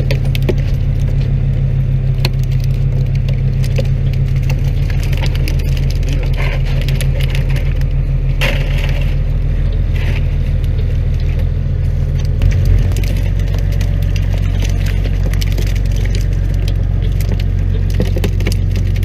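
Fishing boat's motor running steadily with a low drone, with scattered clicks and rattles of wire-mesh fish traps being handled at the rail and a brief knock about two-thirds of the way through.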